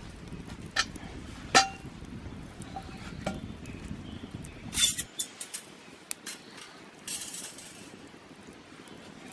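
Metal cookware clinking: a few sharp taps with a short metallic ring, more of them about five seconds in. A low background rumble underneath stops abruptly around the same point.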